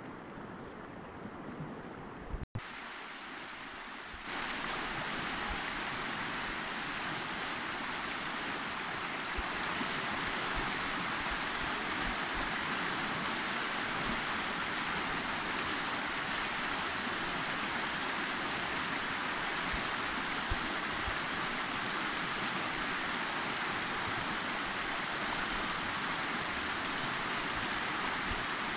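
Fast, shallow mountain river rushing over rocks in white-water rapids, a steady loud rush. The rush comes in about four seconds in, after a few seconds of fainter outdoor background.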